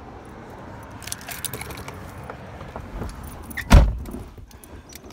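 Someone getting into a car, with light rattles and small clicks, then a car door slammed shut with a loud low thud about three-quarters of the way through.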